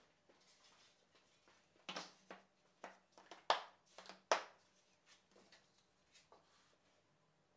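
Sharp knocks and clicks of a pine board being laid on a wooden worktable and held down with toggle clamps: a run of about eight over two and a half seconds, starting about two seconds in, the loudest two near the end of the run, then a few faint taps.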